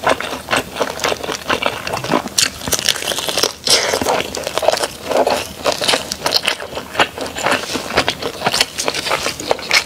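Close-miked eating: repeated bites and chewing of food, heard as a steady stream of short clicks.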